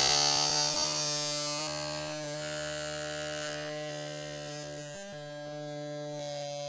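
A steady, buzzy held note with many overtones, breaking briefly about five seconds in and then carrying on.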